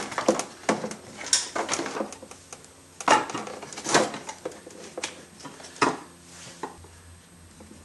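Cast metal intake manifold knocking and scraping against the engine as it is worked into place by hand: a string of irregular clunks and clicks, about five of them louder.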